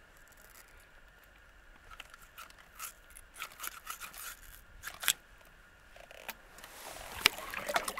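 Small metallic clicks and scrapes of pliers working a deeply swallowed hook out of a catfish's mouth. There is a sharp click about five seconds in and another near the end, then a rising rustle in the last second.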